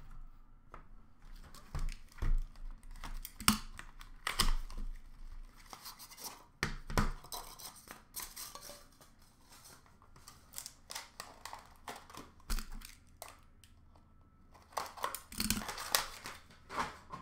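Cardboard packaging of a trading-card box being torn and pulled open while cards and hard plastic holders are handled: an irregular run of rips, crinkles and small clicks.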